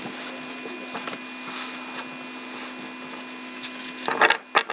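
Trading cards being handled over a steady machine hum, with faint clicks of cards touching. About four seconds in comes a loud burst of card clatter and sharp taps as a stack of cards is squared up in the hands.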